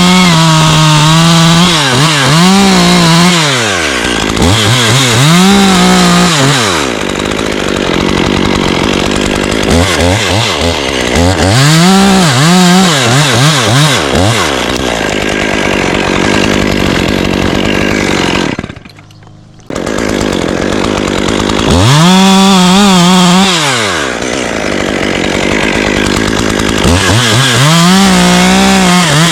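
Chainsaw engine revving up to full throttle and dropping back again and again while cutting wood, with a brief dip in the sound about two-thirds of the way through.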